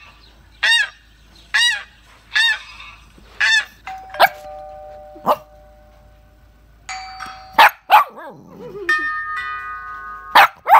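Recorded duck quacking played through a phone's speaker, about one quack a second for the first few seconds. It then gives way to an electronic doorbell sounding a two-note ding-dong twice, and a multi-note chime near the end.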